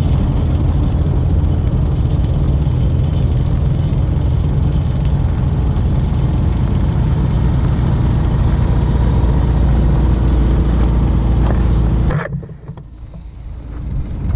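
A classic Volkswagen Beetle driving past on a gravel road, its air-cooled engine running with a low, steady rumble and its tyres crackling over the gravel. The sound is loudest as it passes close and cuts off suddenly near the end.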